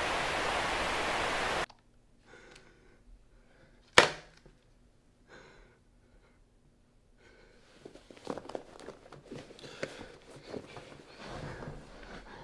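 Television static hissing, cut off suddenly about two seconds in as the set is switched off with the remote. About two seconds later comes a single loud, sharp thud. Then soft rustling and scattered clicks of a person moving and handling things.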